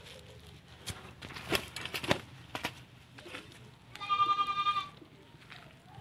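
A few sharp crackles and rustles, then, a little past the middle, an animal's wavering bleating call lasting about a second, the loudest sound here.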